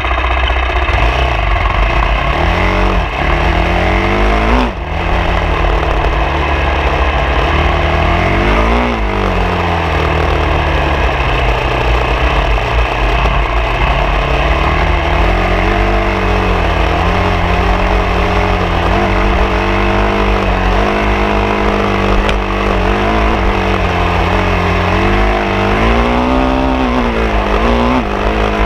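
Off-road motorcycle engine running under way, its pitch rising and falling repeatedly as the rider opens and closes the throttle, over a steady low rumble.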